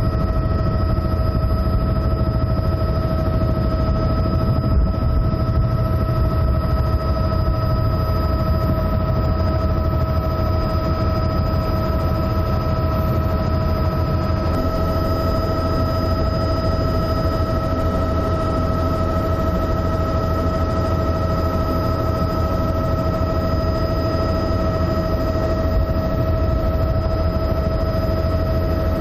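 Steady engine noise of the aircraft filming from above: a low rumble under a constant high whine. The tone shifts slightly about halfway through.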